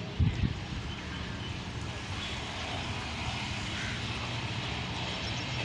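Distant ZCU-20 diesel-electric locomotive approaching at the head of a passenger train: a steady low engine drone under a haze of noise, with a couple of low thumps near the start.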